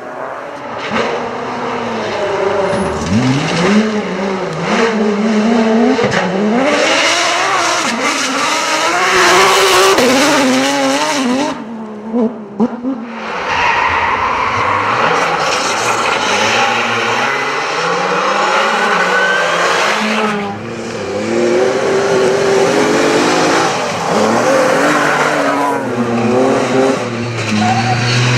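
Rally cars driven flat out on a special stage: engines revving up and dropping back again and again through gear changes, over a steady rush of tyre and road noise with skidding as they slide. The sound breaks off abruptly a little before halfway and again about two-thirds in, as one car's run gives way to another.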